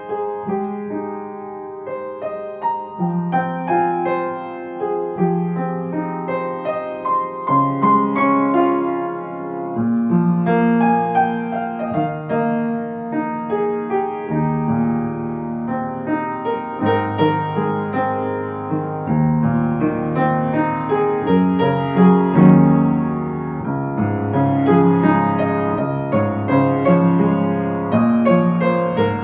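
Slow, gentle solo piano music: soft notes and chords rung and held over sustained bass notes, with a deeper bass entering about halfway through.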